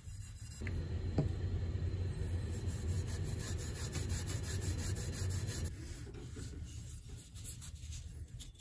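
Small abrasive pad scrubbing back and forth over the cast-iron body of a hand plane, a steady rubbing with a brief knock about a second in.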